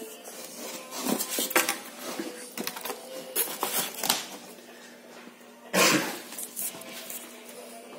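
Packaging being handled during an unboxing: scattered knocks, clicks and clatter, with a louder rustling scrape a little before six seconds in.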